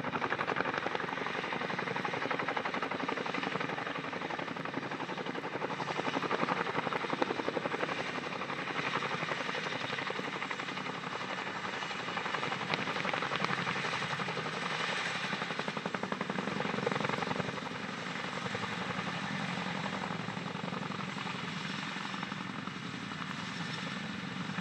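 CH-47 Chinook tandem-rotor helicopter hovering low, its rotors beating in a steady, continuous chop that eases off slightly in the last several seconds.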